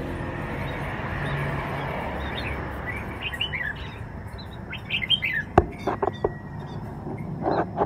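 Pet squirrel squeaking in a run of short, high, falling chirps while it is held down by hand, with a few sharp clicks about halfway through.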